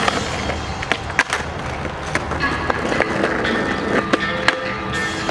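Skateboard wheels rolling over a concrete sidewalk, with several sharp clacks along the way. Music plays underneath, its tones clearer from about halfway through.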